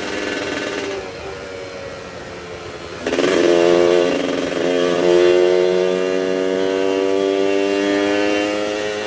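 Yamaha F1ZR 110cc two-stroke motorcycle engine running at a steady idle. About three seconds in it is revved sharply, and it then holds at a higher speed that creeps slowly upward, with the raspy 'ngorok' note the owner shows off.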